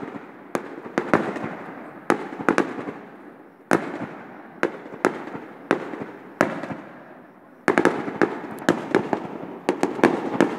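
Aerial firework shells bursting: sharp bangs about every second, irregular, then a quicker flurry of reports about three-quarters of the way through, each trailing off into a rumbling echo.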